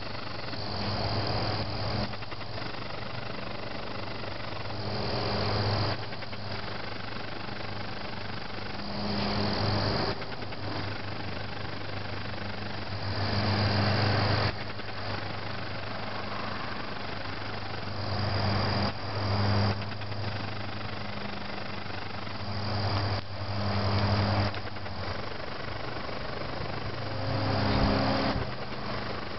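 Crickets chirping, a high-pitched trill that comes and goes, over a steady low hum. Louder swells of noise rise and fall every few seconds.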